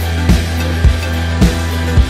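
Background music with a heavy bass and a steady drum beat, a little under two beats a second.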